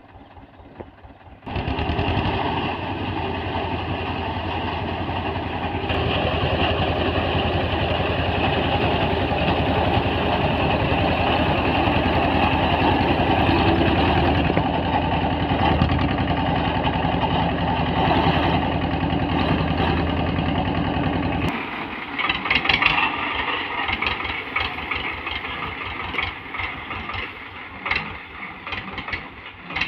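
Escorts 335 tractor's diesel engine running steadily and loud, close by, as it drives its front-mounted reaper through standing wheat. About twenty seconds in the deep engine sound falls away and the sound turns thinner, with irregular clicks and crackles over a lighter engine note.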